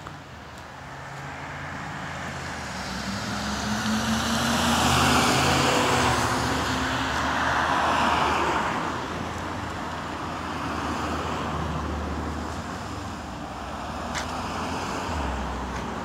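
Road traffic on a wet street: cars passing with their tyres hissing on the wet pavement, swelling to its loudest about five to eight seconds in, with one vehicle's engine note rising slowly in pitch as it goes by.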